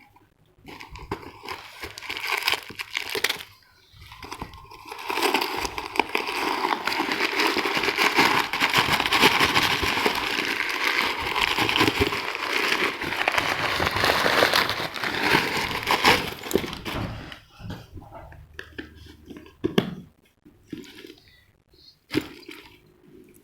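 Plastic packaging crinkling and rustling as a bag is unwrapped. A few scattered handling sounds come first, then several seconds of continuous crackling, then occasional taps and rustles near the end.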